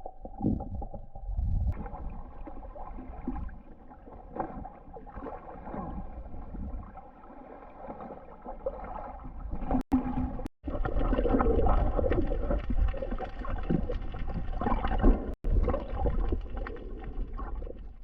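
Muffled water sloshing and gurgling around the camera, with two brief breaks in the sound near the middle.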